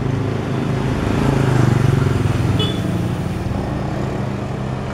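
Motorcycle engine passing close by, growing louder to a peak a little under two seconds in, then fading away.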